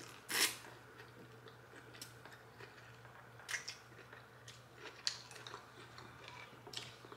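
A person slurping pho noodles once, about half a second in, then chewing with soft, wet mouth clicks and smacks.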